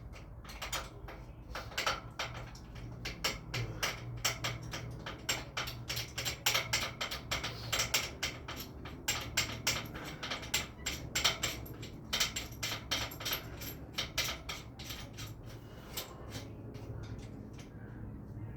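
Light metal clinks and taps of bicycle stem and headset parts being fitted back onto the steerer tube by hand, many short clicks in quick irregular runs.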